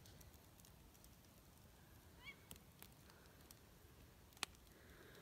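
A single short owl call about two seconds in, rising then falling in pitch, faint over near quiet. A few sharp pops from a wood fire, the loudest near the end.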